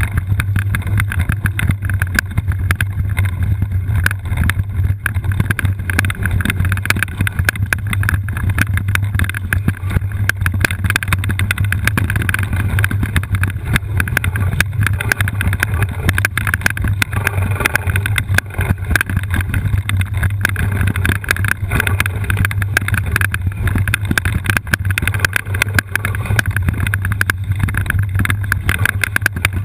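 All-terrain wheelchair rolling down a rough track: a steady low rumble with dense, continuous rattling.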